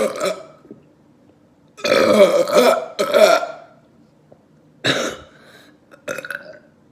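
A young man burping loudly again and again, bringing up gas from gulped carbonated Dr Pepper. One burp comes at the start, two long, loud ones about two and three seconds in, and shorter ones near five and six seconds.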